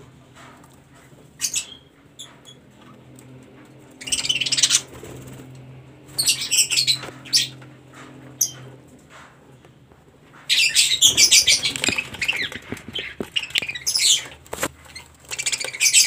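Budgerigars fluttering and chattering in a wire breeding cage, in bursts about four and six seconds in and a longer stretch from about ten seconds in, over a faint steady low hum.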